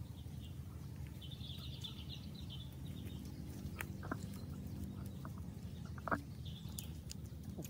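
A bird calls in a warbling phrase about a second in and again briefly near the end, over a steady low outdoor rumble. A few sharp clicks come in the second half, the loudest about six seconds in.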